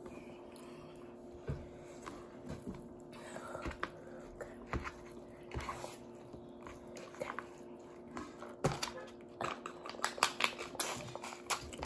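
Close-up eating sounds: chewing with scattered small clicks and knocks from handling a paper noodle cup, busiest near the end as a plastic bag is handled and sipped from, over a faint steady hum.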